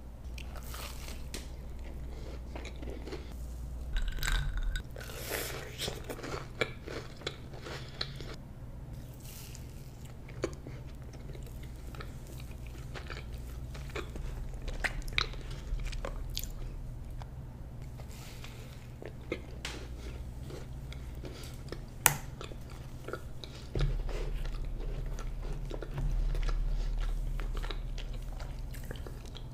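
Close-miked eating of a thick frosted cookie: bites and chewing, with crunches and sharp mouth clicks scattered throughout, over a steady low hum.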